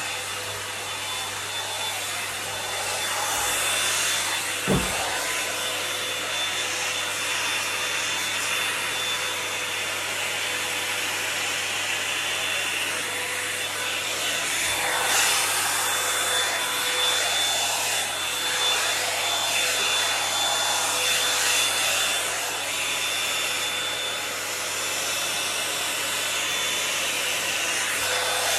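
Toni & Guy hot-air volumiser brush running steadily: a rush of blown air with a steady motor whine as it is worked through the hair. A single short knock comes about five seconds in.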